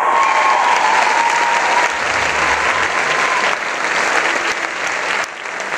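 Theatre audience applauding steadily, many hands clapping at once. A held high tone sinks slightly in pitch and fades out about three and a half seconds in.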